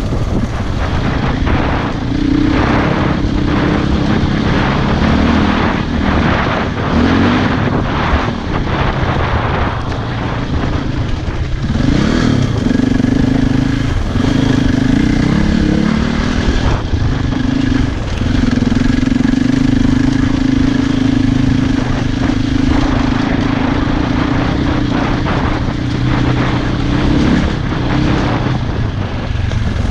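Single-cylinder enduro motorcycle engine running while riding, its pitch rising and falling with throttle and gear changes, with a sweep in pitch about twelve seconds in.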